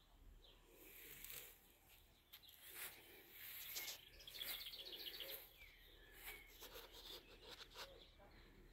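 Faint birdsong: scattered chirps and a fast trill about four and a half seconds in, over low background noise.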